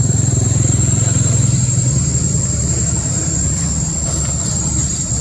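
A steady low engine-like rumble with a constant high-pitched whine above it; the rumble eases a little about three seconds in.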